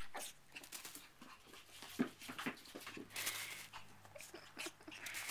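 Puppy playing with a rubber toy on a rug: scuffling and shuffling with small clicks and knocks, the sharpest about two seconds in.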